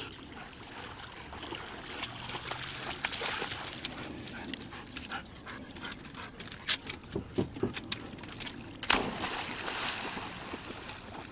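Water sloshing around a swimming husky, then a run of sharp knocks, then a loud splash about nine seconds in as the dog leaps off a wooden dock into the lake, followed by churning water.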